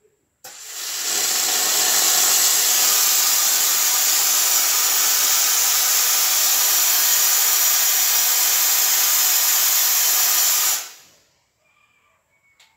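Pressurised steam jetting from the upholstery nozzle of a 3000D steam-vacuum cleaner working at about 6.5 bar: a loud, steady hiss that starts suddenly about half a second in and dies away after about ten seconds.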